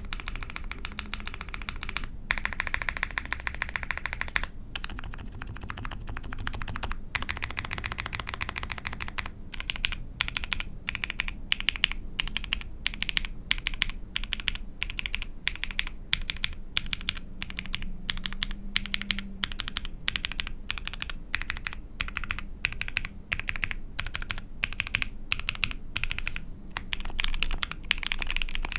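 Typing on an ai03 Vega mechanical keyboard with a POM plate and GMK keycaps, each key fitted with a different mostly lubed switch: rapid, steady keystrokes with a few brief pauses in the first several seconds.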